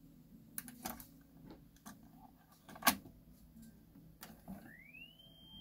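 Transport keys of a Nakamichi 480 cassette deck clicking as they are pressed, the loudest click about three seconds in. Near the end, playback starts and a tone slides up in pitch as the tape comes up to speed, then holds as one steady high tone.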